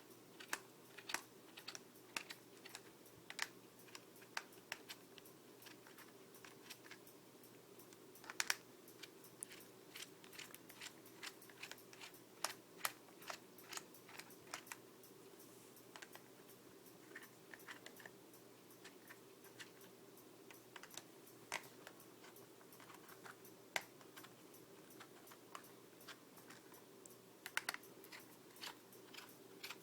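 Small, sharp, irregular clicks and ticks, a few a second, from a Torx T8 screwdriver turning screws out of an Xbox 360 controller's plastic back shell, over a faint steady hum.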